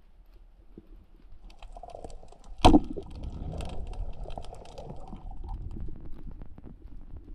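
A speargun fired underwater: one sharp, loud crack about two and a half seconds in, followed by scattered clicking and rustling, heard through the camera's underwater housing.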